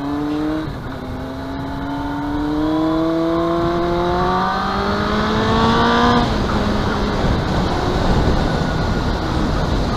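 Yamaha YZF-R1 1000cc inline-four engine pulling hard. The revs drop briefly for a gear change under a second in, then rise steadily for about five seconds. The throttle closes about six seconds in, leaving wind and road rush.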